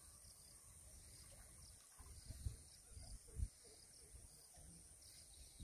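Near silence: faint outdoor ambience with a low rumble and faint high chirping, broken by two soft low thumps about two and a half and three and a half seconds in.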